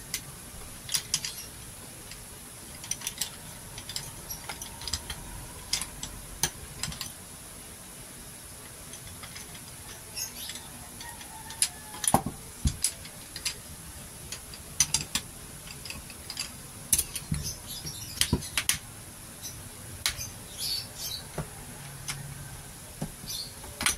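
Scattered clicks and clacks of a camping chair's metal frame poles and hard plastic hub being handled and slotted together, in irregular clusters with quieter stretches between.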